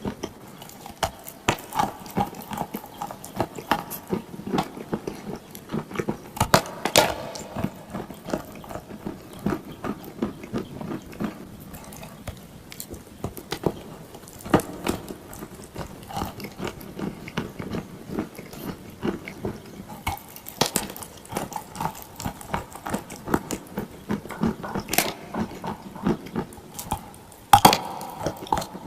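Close-up biting and chewing of dry and wet clay: a steady run of sharp, irregular crunches, with a few louder cracks.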